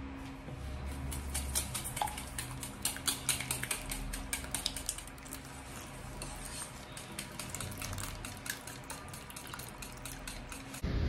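Small wire whisk beating eggs, sugar and milk in a stainless steel mixing bowl: quick, irregular metallic clinks of the whisk against the bowl.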